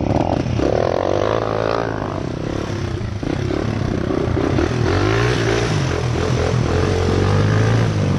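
Honda XR100 single-cylinder four-stroke motorbike engine running under load while being ridden, its pitch rising and falling with the throttle.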